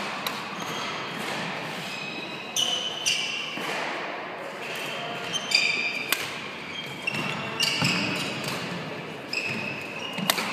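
Sports-shoe squeaks on a wooden hall floor, short high chirps over and over, with a few sharp smacks of a badminton racket on a shuttlecock and faint voices in a large hall.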